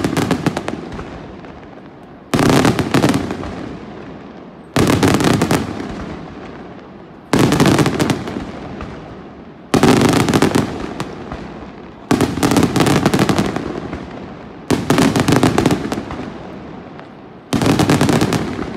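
Daytime aerial fireworks shells bursting overhead, one about every two and a half seconds. Each burst is a rapid cluster of many sharp cracks that fades away before the next one.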